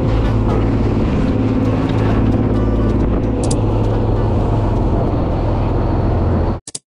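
Fishing boat's engine running steadily with a low, even drone and a few light clicks on top; the sound cuts off abruptly near the end.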